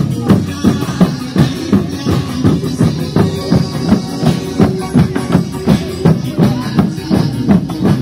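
Loud, upbeat dance music with a steady drum beat, about two beats a second.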